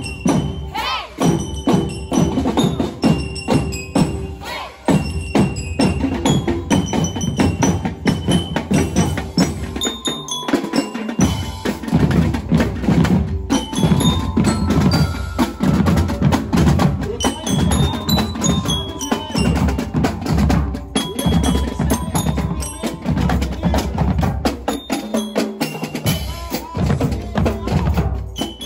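Marching percussion band playing: bass drums, snare drums and hand cymbals beat a steady rhythm under a high bell-like melody. The deep bass drums drop out briefly twice.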